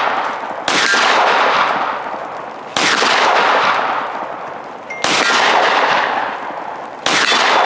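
Gunshots from a firearm, four single shots about two seconds apart, each very loud with a long ringing tail that fades before the next shot.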